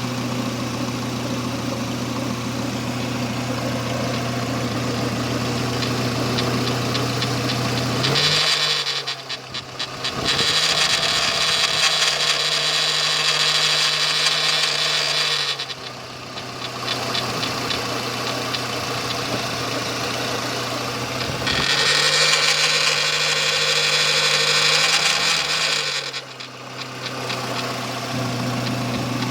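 Renault Espace III's 2.0 16-valve four-cylinder petrol engine running at idle, twice brought up to a higher, steady speed for several seconds with a strong hiss before settling back to idle.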